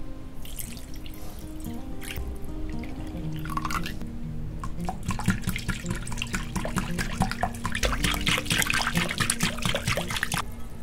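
Milk poured into a glass bowl, then a wire whisk beating it briskly against the glass: rapid clicking and sloshing from about halfway through until just before the end. Soft guitar music plays throughout.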